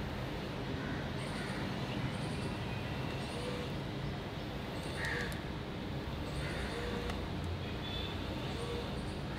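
Steady outdoor background rumble, with short high chirps repeating every second or so over it.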